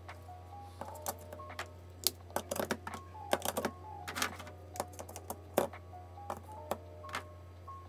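Plastic highlighters clicking and clattering against a clear acrylic organizer as they are picked out and slotted back in, in irregular taps, the loudest about two, three and a half and five and a half seconds in. Soft background music with held notes plays underneath.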